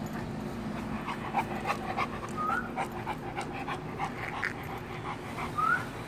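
A large mastiff-type dog panting steadily with its mouth open, its breaths coming in short quick strokes. Two brief rising squeaks stand out, one about two and a half seconds in and one near the end.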